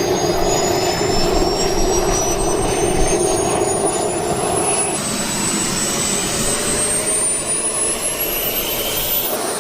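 Jet engine running: a steady rush with a high whine that slowly rises in pitch. About five seconds in the sound changes abruptly, and the whine climbs more steeply near the end.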